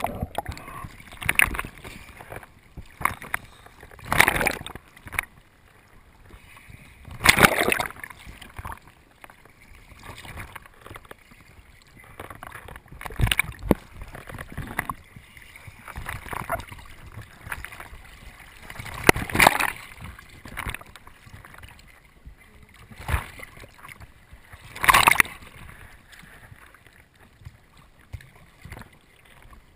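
Sea water sloshing and splashing around a camera bobbing at the waterline in choppy waves, with several louder splashes scattered through.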